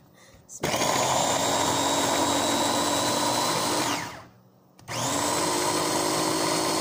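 Electric mini food chopper running, grinding shallots, garlic and tomato into a paste. It runs for about three seconds, winds down with a falling whine, and starts again after a half-second pause.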